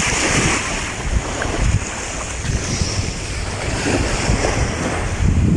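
Wind buffeting a phone microphone in uneven gusts, over the steady hiss of small waves washing onto a pebbly beach.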